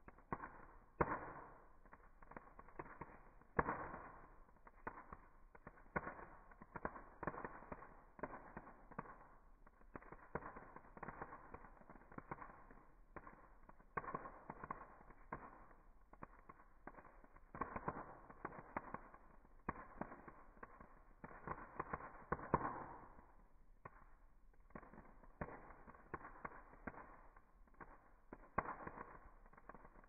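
Wood fire crackling, with dense irregular snaps and a few louder pops as embers burst and throw sparks.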